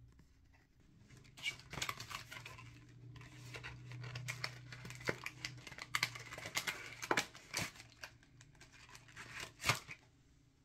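Cardboard box and plastic sachet being handled and opened: crinkling and tearing packaging with sharp snaps and clicks, the sharpest one just before the end.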